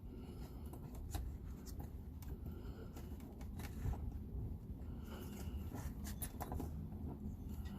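Small scattered clicks and scrapes of fingers turning the retaining nut off the threaded body of a garage door key switch, over a steady low rumble.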